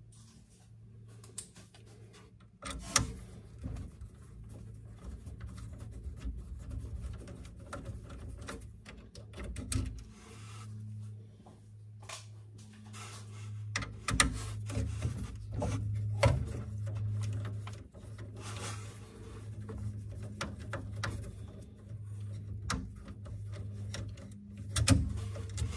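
A small screwdriver clicking and scraping on the screws and plastic front cover of a Bambu Lab X1C print head as the two head screws are backed out. Scattered sharp clicks and rubbing play over a steady low hum.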